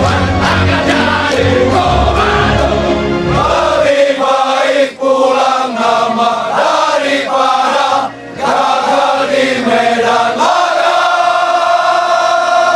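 Music with a choir-like group of voices singing. A heavy low beat runs under it for the first four seconds, then drops out, leaving the voices, which end on a long held note.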